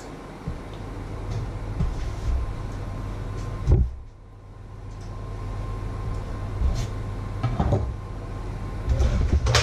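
Knocks and thumps of kitchen handling over a steady low hum, with one sharp knock about four seconds in and a cluster of knocks near the end.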